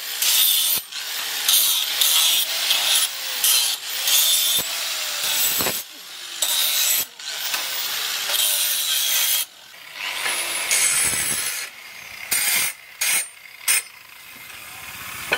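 Electric angle grinder with an abrasive disc grinding the steel blade of a rabbit-ears knife. It makes a harsh hiss of abrasive on steel that cuts in and out many times as the disc is pressed on and lifted off in short passes.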